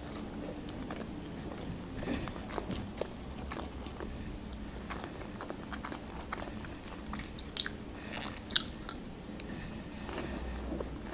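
A person chewing breaded chicken nuggets close to the microphone: soft crunching and small wet mouth clicks throughout, with a few sharper clicks along the way.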